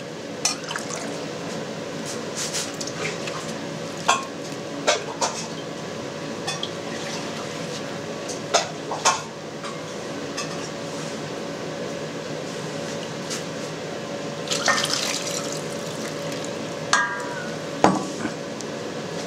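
Hot water sloshing and dripping in a stainless-steel bowl as cheese curd is lifted out, stretched and put back in by gloved hands: the stretching stage of making caciocavallo. A few short knocks and splashes stand out, with a brief metallic ring near the end, over a steady background hum.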